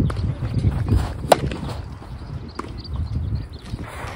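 Tennis rally: sharp pops of the racket striking the ball and the ball bouncing, spaced a little over a second apart, the loudest just over a second in. A low rumble of wind on the microphone runs under it.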